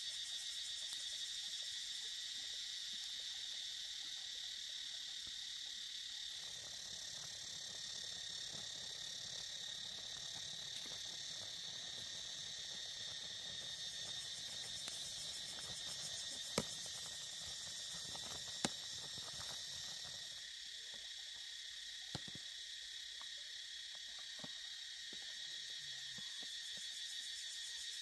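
Steady high-pitched drone of a forest insect chorus, with two sharp clicks about two seconds apart a little past the middle.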